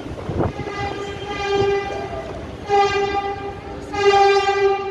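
Metro train horn sounding: a steady, sustained tone, then two shorter, louder blasts, the last cut off near the end.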